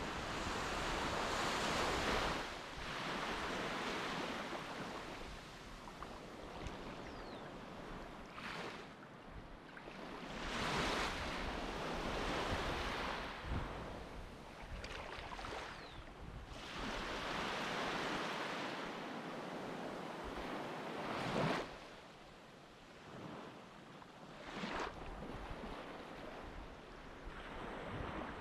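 Sea waves breaking and washing up the shore in repeated surges a few seconds apart, with wind buffeting the microphone.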